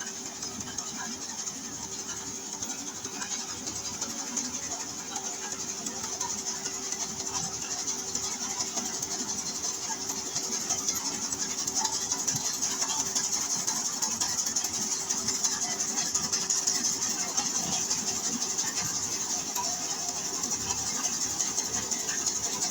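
Steady machine noise: a constant hum under a strong high hiss, growing slightly louder about ten seconds in.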